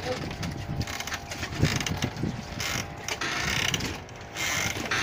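Wooden floating drum-boat platform rocking on choppy waves, knocking and rattling irregularly, with short bursts of hissing splash from the water.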